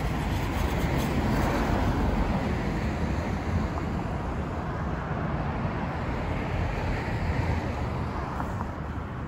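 City street traffic: cars passing at an intersection, a steady wash of tyre and engine noise, a little louder in the first couple of seconds.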